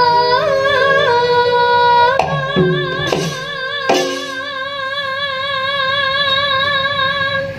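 A female sinden (Javanese gamelan singer) singing through a microphone, holding long notes with a wide, even vibrato, over instrumental accompaniment. There are a few sharp strikes between about two and four seconds in.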